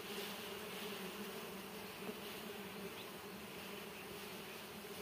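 Honeybees crowding over their open wild comb, buzzing in a steady low hum as a bare hand brushes them off the comb.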